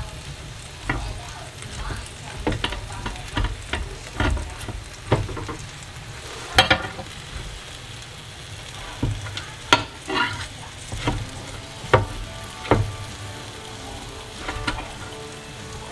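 Ribs sizzling on the hot grill plate of a Ninja Foodi XL indoor grill as they are turned with a metal fork and spatula. A steady sizzle runs under irregular clinks and scrapes of the utensils against the plate, a few of them sharper and ringing.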